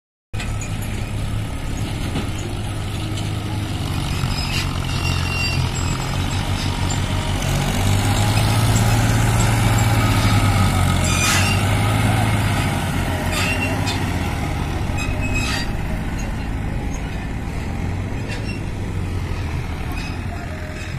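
Farmtrac 41XP tractor's diesel engine running steadily under load as it drags a land leveller through the soil, growing louder as it passes close by near the middle and fading as it moves away, with a few sharp clicks along the way.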